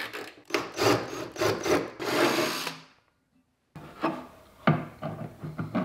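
A ratchet wrench clicking in short strokes as the bonnet hinge bolts are undone. After a short gap, the hard plastic snorkel body rubs, scrapes and knocks against the Suzuki Jimny's guard and hinge as it is slid into place.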